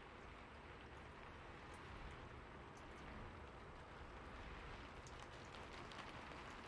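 Soft, steady rain falling, with scattered individual drops ticking through it.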